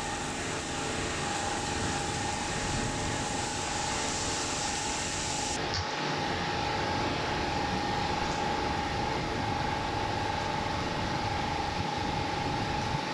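Steady hiss of noise with a steady hum tone running through it; about five seconds in, the highest part of the hiss drops away abruptly.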